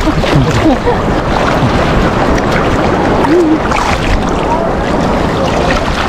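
Sea surf sloshing and splashing right around a camera held at the water's surface, a dense, steady churning of water.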